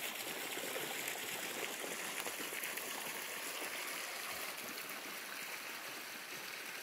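Water running steadily, as from a small stream or water feature.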